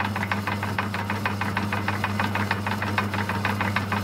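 Myford lathe running: a steady motor hum with a rapid, even ticking from the drive, about seven ticks a second.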